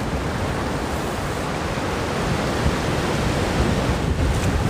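Large surf waves breaking, a steady rushing noise with no distinct crashes.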